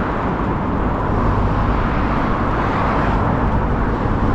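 Steady rushing wind noise on the microphone, with a low rumble and no change in level.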